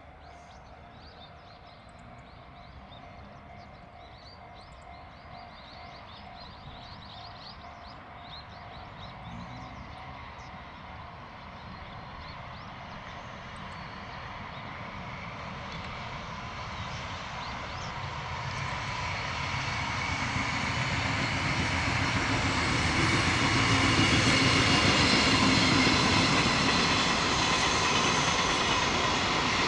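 JR Freight EF200 electric locomotive hauling a freight train, approaching and passing: a steady rumble of wheels on rails growing louder over some twenty seconds, with a steady whine on top, loudest a few seconds before the end as the locomotive goes by.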